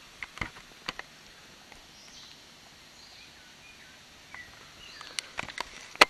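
Rainforest ambience: a steady insect hiss with a few faint bird chirps, broken by several sharp clicks and knocks, a few about a second in and a cluster near the end.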